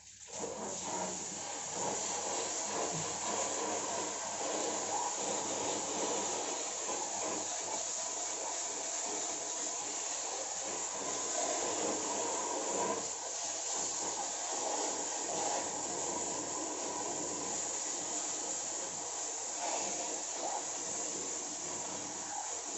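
Water spraying steadily from a hose, with a continuous hiss, as washing machine parts are washed clean.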